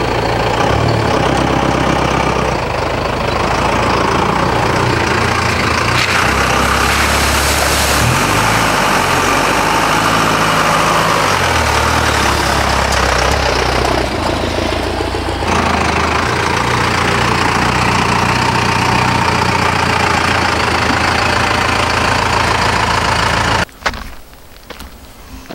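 4BT Cummins four-cylinder turbo diesel in a Ford F-150 pickup, running loud under load and revving up and down as the truck drives through a muddy puddle, its tires splashing water. The engine sound cuts off suddenly near the end.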